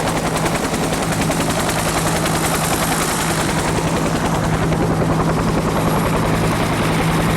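Helicopter running close by, its rotor beating in a fast, steady pulse over a steady engine hum.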